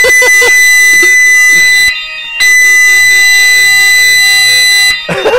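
Fire alarm sounding a loud, steady, high-pitched tone. It cuts out for a moment about two seconds in and again near the end.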